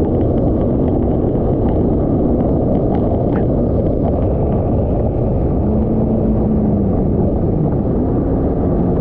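Yamaha VXR 1.8 WaveRunner running at speed across open water: a loud, steady rush of wind and water over the engine drone. A faint engine note rises and dips in the second half as the ski slows from about 55 to 43 mph.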